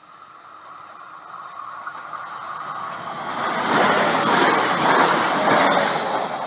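Passenger train approaching and passing close by on the rails. Its running noise grows over the first three seconds and is loudest for about two seconds as the cars go past, then eases slightly.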